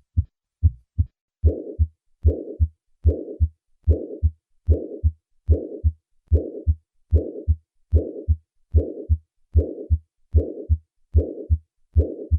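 Heartbeat of about 75 a minute. The first few beats are plain paired first and second heart sounds. From about a second and a half in, each beat carries a systolic murmur between the two heart sounds: the murmur of acute mitral regurgitation, here from a ruptured chorda tendinea.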